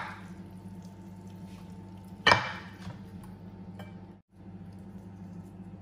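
Metal kitchen tongs clinking sharply once against cookware about two seconds in, with a short ringing tail, while spaghetti is lifted and served, then a faint click. A steady low hum runs underneath.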